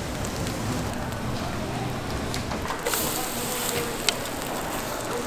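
Korean pancake (buchimgae) batter frying in oil in a frying pan: a steady sizzle and crackle that turns brighter about three seconds in, with one sharp click shortly after.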